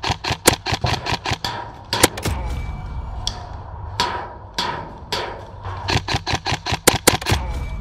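Airsoft guns firing: quick bursts of sharp shots, several a second, coming in clusters.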